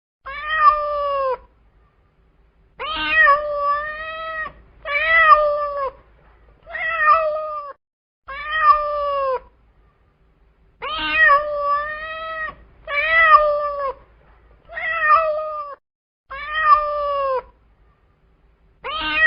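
Cat meowing over and over: about ten drawn-out meows, each a second or so long, with short silent pauses between them.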